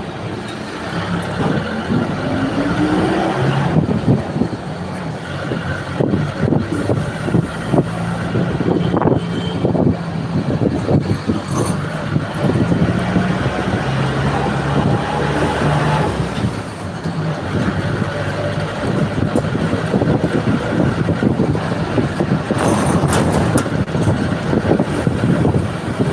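Bus engine running under way, with the body rattling and knocking over the road and a steady rush of road and wind noise; the engine note climbs a few seconds in.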